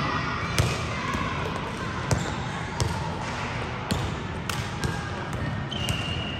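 Basketballs bouncing on a gym floor: sharp, irregular thuds, with indistinct voices behind them.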